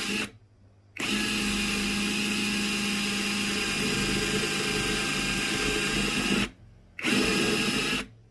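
158VF cordless brushless impact wrench, fitted with a drill adapter and a step drill bit, boring through a motorcycle helmet shell. The motor runs steadily in three bursts: a moment at the start, then about five and a half seconds, then about a second near the end.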